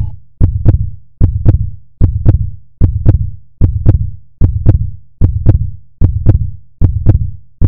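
Heartbeat sound effect: a steady double thump, lub-dub, repeating about every 0.8 seconds. Each beat is a low thump topped by a sharp click.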